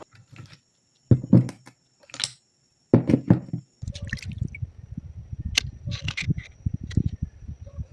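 Water splashing and dripping in a few short bursts, then a steady low rumbling with splashes from about four seconds in, under a faint steady high whine.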